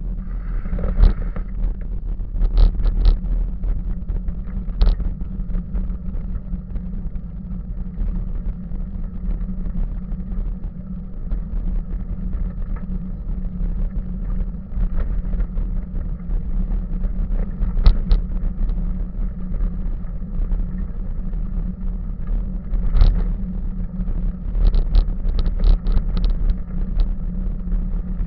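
Bicycle rolling along a gravel-and-dirt path: a steady low rumble of tyres and frame over the rough surface, with short clicks and rattles at irregular moments from bumps, several of them close together near the end.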